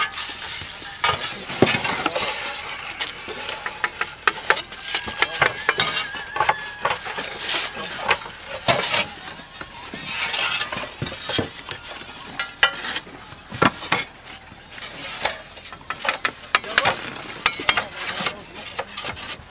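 Handmade clay roof tiles clinking and knocking against one another, with scraping, as they are handled and stacked: many short, sharp, irregular strikes.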